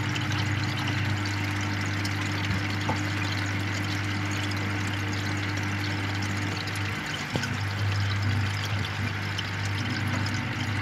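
Aquarium air stone bubbling steadily, with the steady low hum of the air pump under it.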